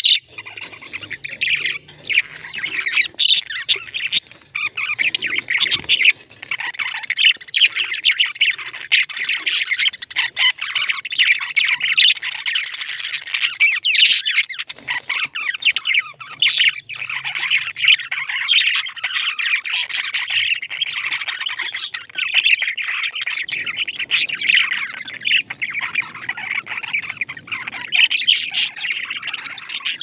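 A flock of budgerigars chattering continuously, a dense warble full of quick, sharp chirps.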